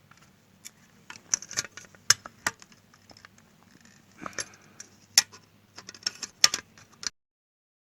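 Small metallic clicks, taps and scrapes of a sewing machine foot pedal being worked on as a fastener in it is tightened, irregular and spread out, with a faint low hum underneath; the sound cuts off suddenly near the end.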